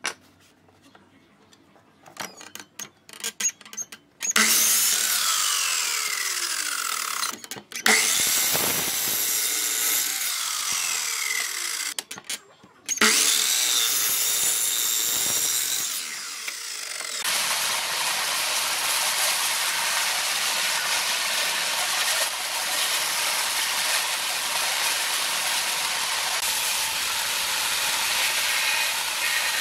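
A few handling clicks, then a sliding compound miter saw cutting wood in three loud bursts, its motor whine falling in pitch as the blade spins down. From about halfway through, a band saw runs steadily as it cuts wood.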